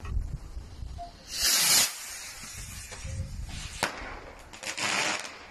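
Fireworks going off: a loud hiss about a second and a half in, a single sharp crack a little before four seconds in, then another shorter stretch of hissing.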